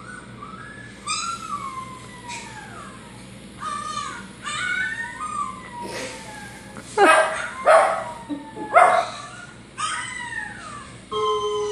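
A puppy whining and howling through a television's speakers, in repeated drawn-out cries that fall in pitch. Three loud, sharp barks from a dog come about seven to nine seconds in.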